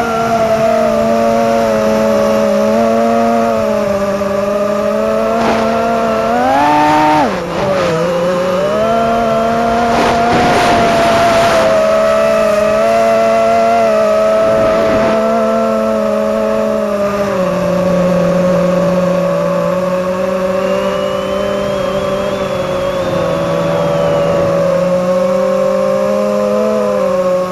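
An FPV drone's motors and propellers buzz loudly and steadily. The pitch climbs about six seconds in, drops sharply a second later, then wavers up and down with the throttle.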